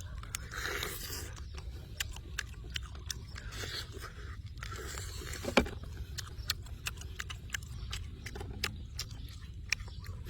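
Irregular sharp clicks and light scraping over a steady low rumble, with one louder knock about halfway through.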